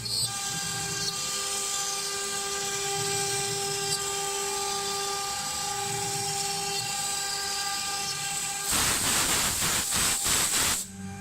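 1325-model advertising CNC router's spindle running with a steady high whine as it works. About nine seconds in, a louder, harsher cutting noise lasts for about two seconds.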